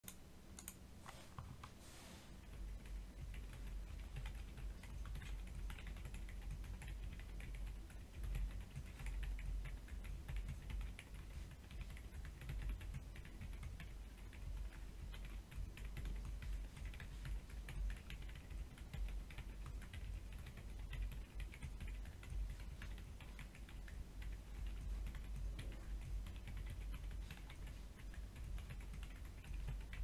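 Steady typing on a Sugar65 mechanical keyboard with Outemu Silent Peach silent switches and ABS double-shot Cherry-profile keycaps. The sound is soft, muted tapping, with the fingertips striking the keycaps louder than the switches. A few separate clicks come first, and continuous typing starts about two seconds in.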